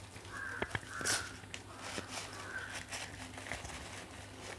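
Thin wrapping crinkling and crackling in small clicks as it is pulled by hand off glass test tubes. A crow caws faintly a few times in the background.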